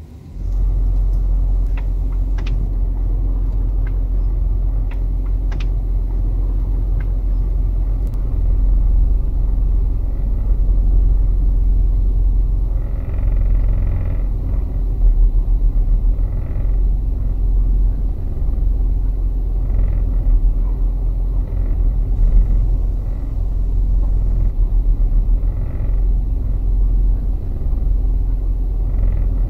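Low, steady rumble and vibration of a Ford pickup at crawling speed in a slow turn, with short buzzing rattles coming and going from about halfway on. It is limited-slip differential shudder: the rear clutch packs lock and unlock rapidly, and the vibration travels through the chassis and makes the side mirrors and headlamps vibrate. Typically this comes from a differential service done without friction modifier, or from worn or damaged clutch packs.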